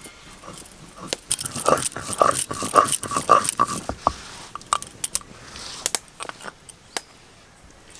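Spice paste being ground on a flat stone slab with a stone roller (sil-batan): a run of rhythmic grinding strokes, about three a second, starting about a second in. Then scattered clicks and scrapes as the paste is worked and scraped off the stone.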